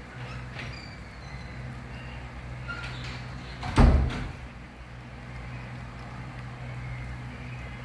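A single loud knock about four seconds in, over a steady low hum.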